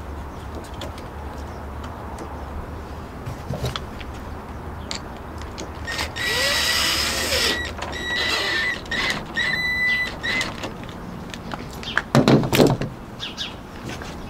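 Cordless drill driving a machine screw into the camper roof edge: one run of the motor with a steady whine about six seconds in, then several short trigger bursts over the next two seconds. A couple of loud knocks follow about twelve seconds in.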